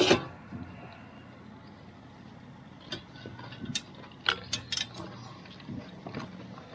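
A string of sharp, irregular clicks and knocks, loudest right at the start and bunched together in the middle, over a faint low hum.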